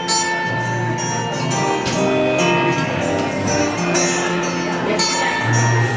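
Live instrumental passage of a pop ballad: electronic keyboard playing held chords, with acoustic guitar strumming, the chords changing every second or so.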